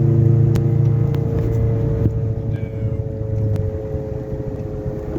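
Inside the cabin of a 2015 Subaru BRZ at highway speed: the engine note drops away about a second in, leaving tyre and road noise with a steady hum from the rear left. The owner takes the hum for a worn rear wheel hub bearing.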